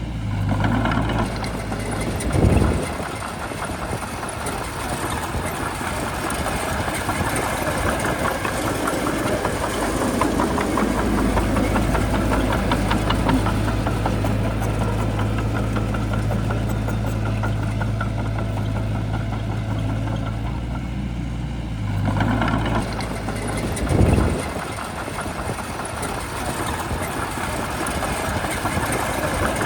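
Shantui bulldozer's diesel engine running, its note steadier and stronger through the middle stretch. Two short, loud low thumps come in, one a couple of seconds in and one near the end.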